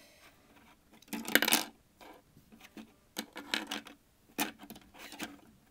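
Plastic LEGO minifigures and pieces clattering and clicking as they are moved off a table: a loud clatter about a second in, then a few scattered clicks.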